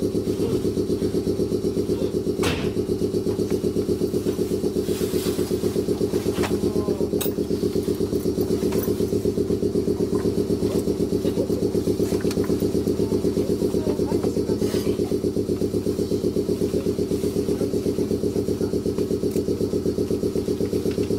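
Air compressor of a stationary Meitetsu 6800 series electric train running with a fast, even chugging that holds steady throughout, with a couple of sharp clicks, one about two and a half seconds in and another around seven seconds.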